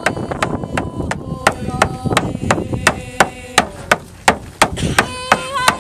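Rawhide frame hand drum beaten with a stick in a steady beat, about three strokes a second. Women's voices sing held notes over it, wavering more near the end.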